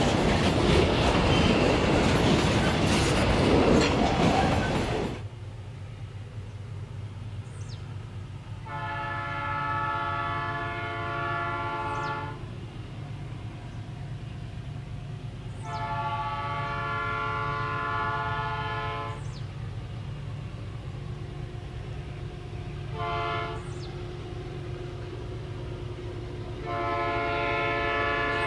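Grain hopper wagons of a freight train rolling past close by with a loud rumble and clatter, cutting off suddenly about five seconds in. Then a diesel locomotive's multi-chime air horn sounds four times at a distance, long, long, short, long, over the low steady rumble of the approaching train.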